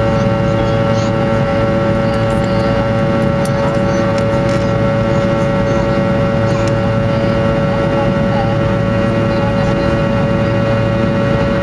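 Fokker 100's rear-mounted Rolls-Royce Tay turbofans running at a steady power, heard inside the passenger cabin: a constant low rumble with a steady whine held on several fixed tones.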